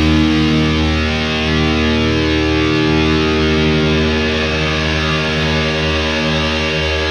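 Background music led by distorted electric guitar, with sustained held chords.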